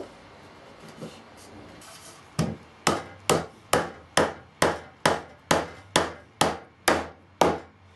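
A mallet knocking on a pine board about twelve times, in an even beat of about two blows a second, each blow with a short ringing tail. The board is being tapped down into a notched joint.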